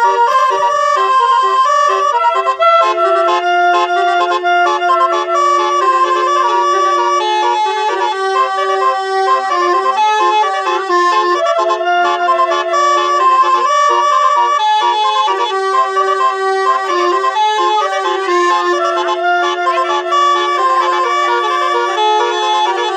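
Telolet bus horn, a bank of electrically switched air horns, playing a tune: a reedy, organ-like melody of steady notes over a held low note.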